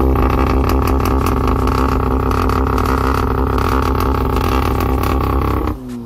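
Volkswagen Golf R's 2.0 TSI turbocharged four-cylinder, through an Akrapovic exhaust, revved while parked and held steady at high rpm, loud, for about five and a half seconds, then released near the end so the revs fall away.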